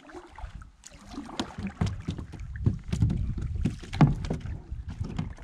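Plastic kayak hull knocking and bumping, with reeds rustling and scraping along it as the kayak moves into the reed bed. The knocks and rustles are irregular, over a low rumble, with a sharper knock about four seconds in.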